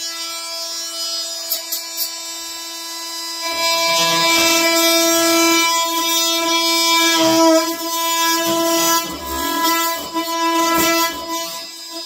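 Cordless oscillating multi-tool running with a steady pitched buzz. From about three and a half seconds in, its blade bites into a wooden floorboard end, adding a rough cutting noise under the buzz.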